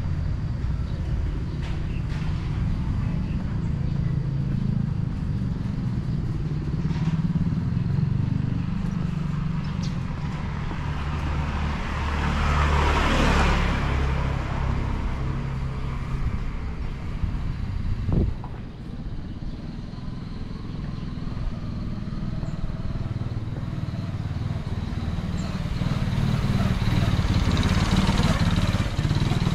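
A small motorbike's engine passing close by near the end, swelling as it goes past, over a steady low rumble. About halfway through another passing vehicle rises and fades, and a single knock comes a few seconds later.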